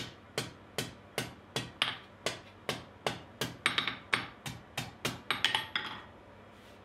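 Hand hammer striking the red-hot tip of a thin steel bar on a steel anvil, about two to three blows a second with a bright ring on some, then a quick flurry of lighter taps before the hammering stops about six seconds in.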